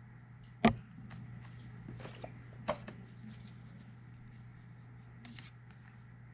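Lobby cards and packaging being handled and turned over, with rustles and light clicks, a sharp knock about a second in and a lighter one near three seconds, over a steady low hum.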